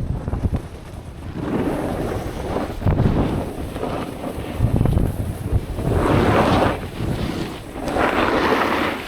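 Wind buffeting a DJI camera's built-in microphone while riding down a ski slope, under a steady rush of snow beneath board and skis. The snow hiss swells louder three times as edges scrape through turns, most strongly in the second half.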